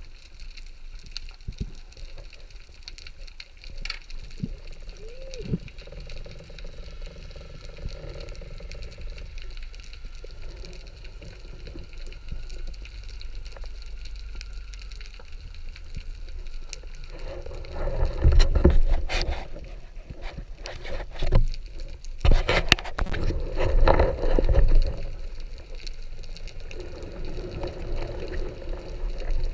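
Underwater sound through a camera's waterproof housing: a low steady rush of water with scattered clicks, then, in the second half, several louder bursts of rumbling, gurgling water noise as the diver moves.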